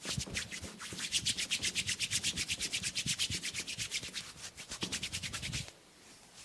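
Brisk scratching and rubbing strokes on hair and scalp during a head massage, a fast even rhythm of about eight strokes a second that stops shortly before the end.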